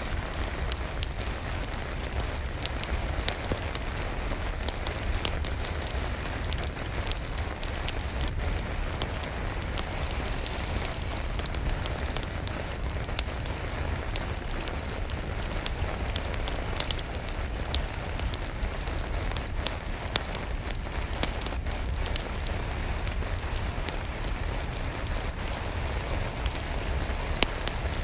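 Steady rain falling on a surface, mixed with a crackling wood fire in a fireplace: a constant rush of rain with frequent small, irregular pops and snaps.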